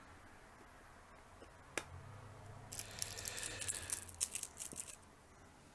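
Batteries being pressed into the plastic battery compartment of a Casio fx-CP400 calculator. There is one sharp click nearly two seconds in, then about two seconds of quick clicking and rattling as the cells are seated.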